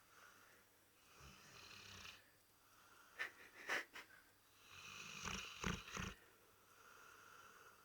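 Labrador retriever snoring in its sleep: slow breaths that swell and fade every few seconds, a few sharp snuffling clicks about three seconds in, and the loudest snore around five to six seconds in.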